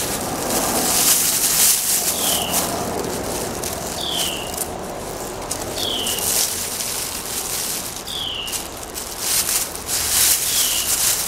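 A bird repeats a short, falling whistle about every two seconds, five times in all, over a steady rushing noise with scattered crackles.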